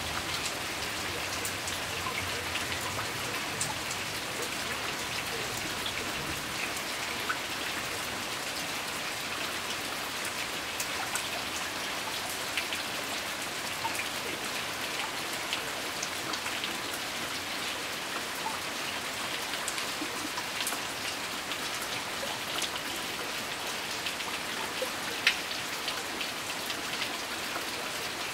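Steady rain falling on garden foliage and ground: an even hiss dotted with many small, close drop hits, and one louder single drop hit near the end.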